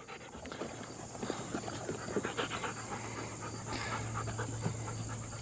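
Huskies panting, with crickets chirping steadily behind.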